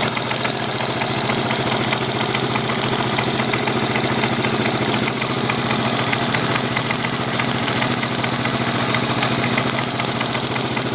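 1983 Yamaha XT550 single-cylinder four-stroke engine idling steadily with a rhythmic knock. The owner hears the knock from the right-hand crankcase; it has grown worse over a few days, is unchanged by the clutch or gear, and goes away under load and at higher rpm.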